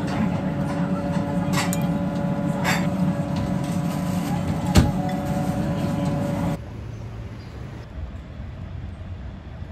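Steady machine hum in a restaurant, with a few sharp clinks of chopsticks and a spoon against ceramic udon bowls, the loudest about five seconds in. About six and a half seconds in it cuts abruptly to quieter street ambience.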